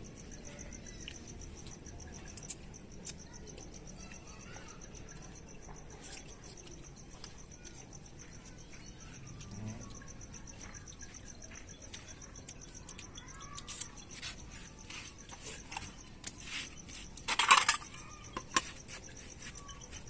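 Crickets chirping in a steady, rapid high trill, with scattered short clicks and knocks over it, the loudest about three-quarters of the way through.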